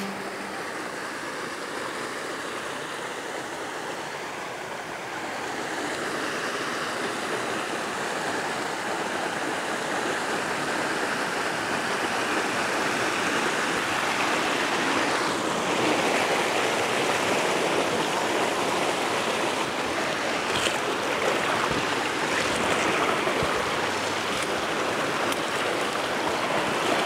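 Flowing water making a steady rushing sound that grows louder after about five seconds.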